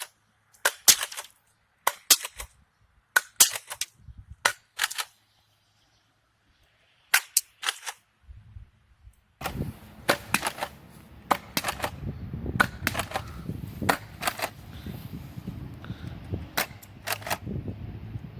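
Nerf blaster firing foam darts at a can again and again, a sharp click at each shot, often in quick pairs, about one to two a second with a short pause in the middle. A steady low rumble comes in about halfway.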